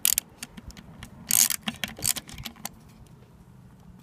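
Ratchet and socket clicking as a rusty bolt is backed out of a riding mower's differential casing: a string of irregular sharp clicks for about two and a half seconds, with a louder burst of noise about a second and a half in, then only faint ticks.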